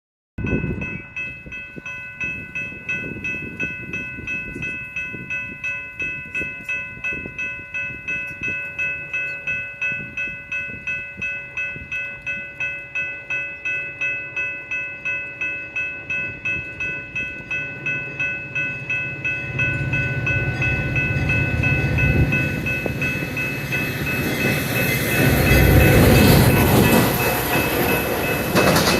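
Railroad crossing bell ringing steadily at about two strokes a second. From about 19 seconds in, the rumble of an approaching Metra commuter train builds up, loudest around 26 seconds as the train passes.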